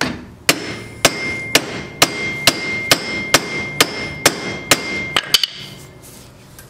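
A hammer striking a wrench on a stuck Hydro-Gear transmission drain plug, about a dozen blows at roughly two a second with metal ringing between them, ending in a few quick taps. The blows are meant to shock the seized plug loose.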